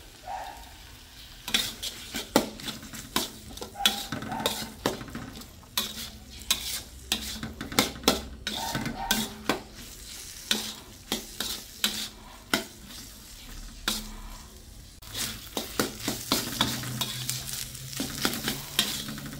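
Metal spatula scraping and knocking against a stainless steel wok as a potato and sardine filling is stirred and fried, over a light sizzle. The strokes come quickly and irregularly, easing off briefly about two-thirds of the way through.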